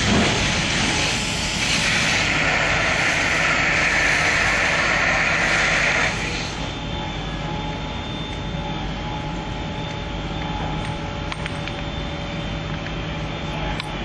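Compressed-air-foam hose nozzle discharging onto a car fire: a loud, steady rushing hiss that cuts off suddenly about six seconds in as the flow stops, leaving a quieter steady engine hum.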